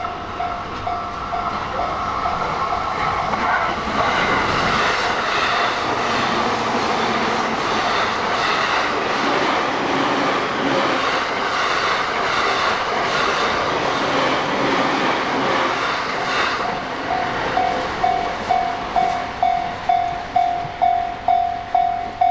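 A Japanese level-crossing warning bell ringing about twice a second while a train runs past. The train's noise builds a few seconds in and drowns the bell through the middle, then fades, and the bell stands out clearly again near the end.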